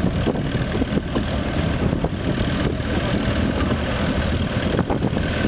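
Tractor engine running steadily while towing a passenger trailer, heard from on board the trailer: a dense, even rumble with a few short knocks and rattles.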